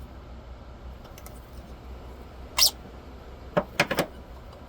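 A toy prop gun being handled: a short scrape or squeak about two and a half seconds in, then three quick clicks in a row near the end.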